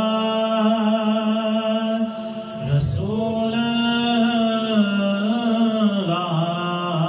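A man singing a naat solo, with no instruments, close into a hand microphone. He draws out long, wavering melismatic notes, with a short break for breath about three seconds in.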